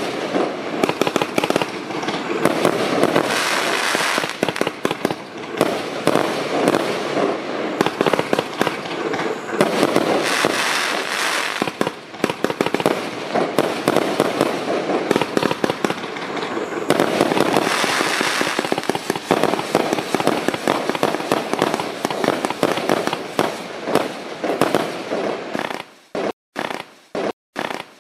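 A Lesli Silver King Connect firework cake, 144 shots of 25 mm calibre, firing a rapid, dense string of launches and aerial bursts. About 26 seconds in, the firing thins to separate bangs with short silences between them.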